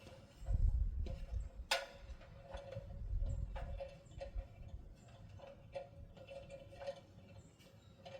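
Wind buffeting the microphone in gusts during the first half, over irregular light ticks and clicks that go on throughout.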